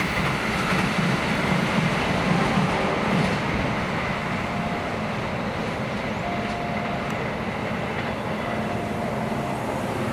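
Argo Wilis express train running past at speed on a curve and receding: a steady rumble and clatter of wheels on rail, loudest in the first few seconds, with a faint thin wheel squeal coming and going later.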